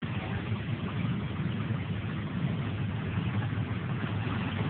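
Farm tractor engine running hard under load as it drags a weight sled in a tractor pull, a steady low drone that neither rises nor falls.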